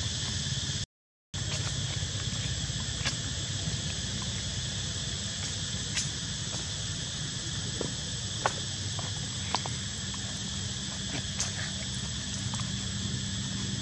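Steady high insect drone with a low rumble underneath, and a few scattered sharp clicks. The sound cuts out completely for a split second about a second in.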